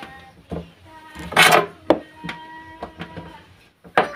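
Hand-held gas lighter clicking several times at a gas stove burner, with a loud brief rushing burst about a second and a half in.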